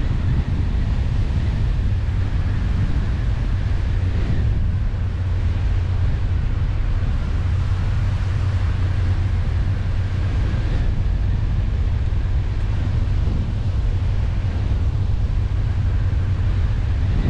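Car driving at a steady speed: a constant low rumble of engine and tyres on the road, with wind noise on the microphone.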